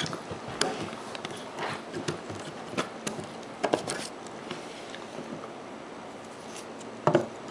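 Scattered light clicks and knocks of hands handling PC parts on a bare motherboard, as DDR3 RAM modules are being fitted into their slots.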